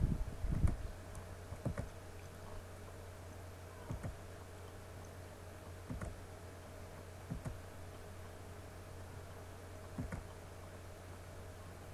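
Single computer clicks every one to three seconds over a steady low hum.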